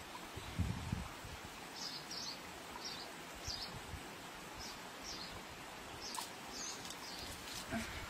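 A bird giving short high chirps, one every half second or so from about two seconds in, over a faint outdoor background with light rustling of leaves and fruit being handled; a few soft bumps near the start.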